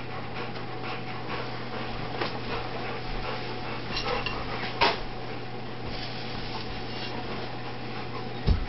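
A Rottweiler moving about with light metallic clinks, a sharp knock about five seconds in and a low thump near the end.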